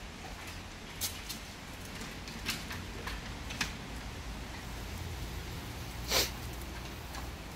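Dogs moving about and chewing, with a few light clicks and taps and one short, louder puff of breath-like noise about six seconds in, over a low steady rumble.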